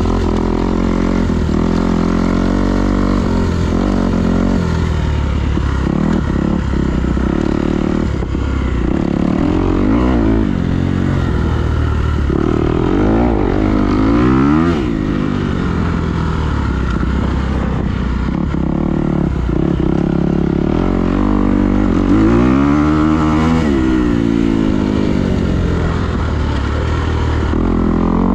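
A vehicle engine running continuously under load, its pitch climbing and dropping several times as it is revved and eased off.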